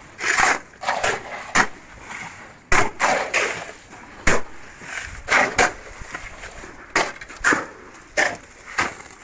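Hand tools striking and scraping on construction work, a dozen or so sharp, irregular strokes, some drawn out into a short scrape.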